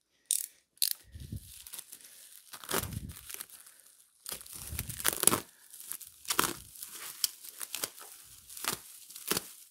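Packaging being torn open and rustled by hand: a series of irregular rips and crinkles, with a few dull bumps.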